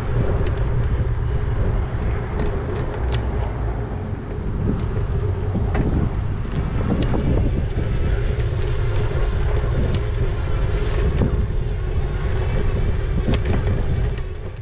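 Riding an e-bike: a heavy rumble of wind on the microphone and road noise, with a steady hum and scattered sharp clicks and rattles throughout. The sound begins to fade out near the end.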